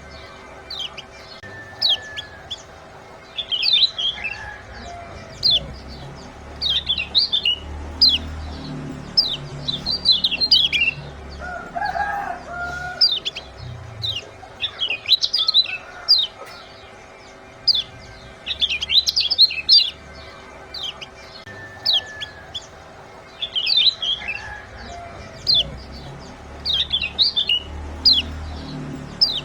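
Lemon-bellied white-eye (kecial kuning) giving "ciak" calls: clusters of short, quick, high chirps every second or two. A lower call comes in about midway, over a faint steady hum.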